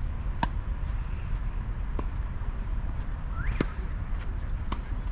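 Tennis rally: sharp pops of the ball off rackets and the court, four in all about one and a half seconds apart, over a steady low rumble.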